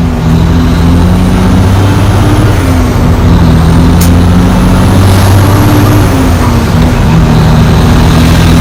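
Kenworth T800 semi-truck's diesel engine running loud and steady at a low pitch, consistent with the engine brake holding the truck on a mountain descent. The pitch shifts slightly a couple of times.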